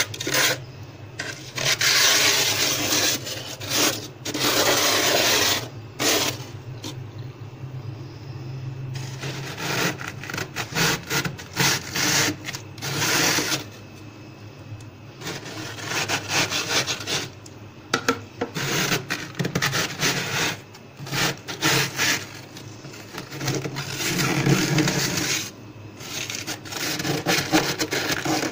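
A plastic ruler scraping thick frost off the inside of a freezer in repeated strokes of uneven length, shaving the frost loose so it piles up on the ruler.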